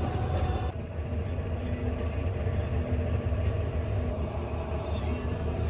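Tractor engine running with a steady low drone, heard from inside the cab; a higher whine stops under a second in.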